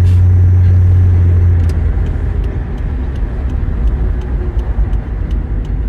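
Car cabin noise with a rear window open while driving: engine and road noise under the rush of wind at the window. A steady low drone gives way to a rougher, fluttering rumble about a second and a half in.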